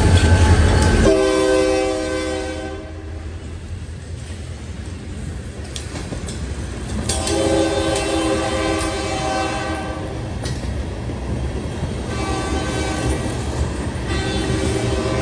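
Indiana Rail Road freight train passing: a diesel locomotive's engine rumbles by in the first second, then hopper cars roll past with clattering wheels. Over this a multi-chime train horn sounds four blasts, long, long, short, long, the grade-crossing signal.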